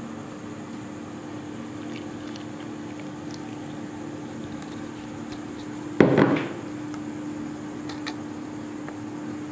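Kitchen dish handling over a steady low hum: a few light clinks, then one sharp knock about six seconds in, as the dish meets the clay pot or the counter.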